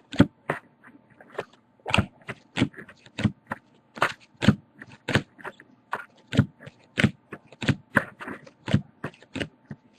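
Trading cards being flipped through by hand, one after another: a quick run of short scrapes and snaps as each card slides off the stack, about two or three a second.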